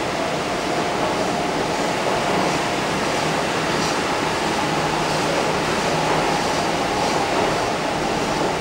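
Steady running noise inside a Kintetsu 1230 series electric train at speed: the even rush of wheels on rail, with a faint steady tone beneath it.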